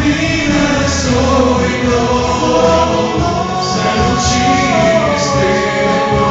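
Male vocal quartet singing a Christian worship song in harmony through microphones, the voices holding long notes.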